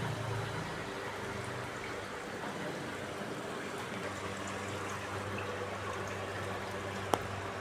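Water running steadily through a washing machine, over a low steady hum, with one sharp click about seven seconds in.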